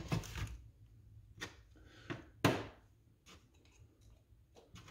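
Light clicks and taps of small shock rebuild parts being handled: metal pieces and the shock shaft set against a plastic parts tray, with one sharper tap about two and a half seconds in.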